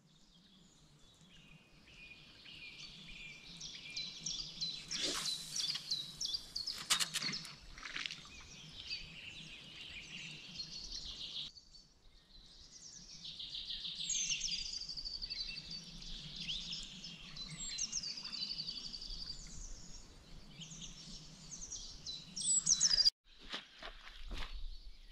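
Several songbirds singing, their chirps and trills overlapping, with a louder call near the end. A few short clicks about five and seven seconds in.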